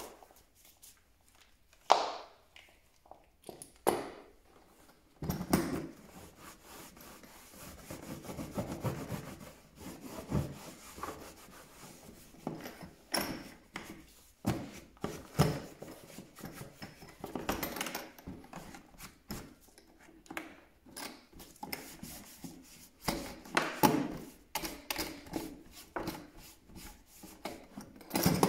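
Hard plastic tool carrying case being wiped and scrubbed by hand. A few handling knocks and clicks come first, then irregular rubbing strokes with occasional knocks.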